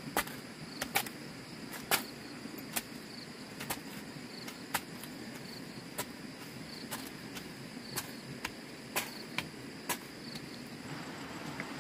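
Insects chirring steadily in a high, even pulse, with sharp knocks or clicks cutting through at irregular intervals, roughly once a second.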